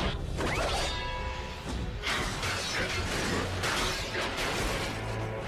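Animated robot-battle sound effects: mechanical clanking, metal crashes and whooshes over background score music.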